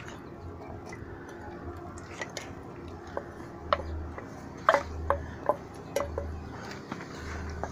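Wooden spoon scraping and knocking against a steel bowl as sliced onions and peppers are tipped out into a frying pan of hot palm oil. The sharp knocks start about three seconds in and come several times, each with a brief metallic ring.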